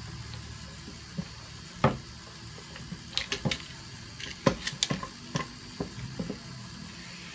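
Scattered small clicks and taps from hands working a roll of tape around a gun: one sharp click about two seconds in, then a quick run of them in the middle.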